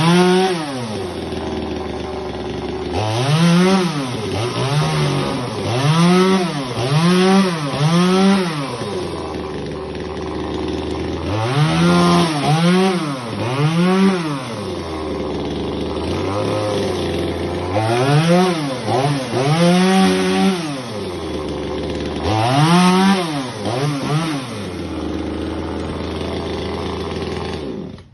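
Two-stroke chainsaw idling and revved up and down again and again in short bursts, then shut off abruptly near the end.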